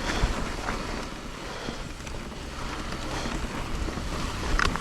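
Wind buffeting the microphone over the rumble and rattle of a mountain bike rolling along a wet dirt trail, with a few light knocks and a brief squeak near the end.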